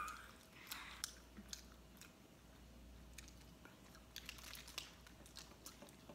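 Faint chewing and biting of fast food, with scattered small sharp clicks.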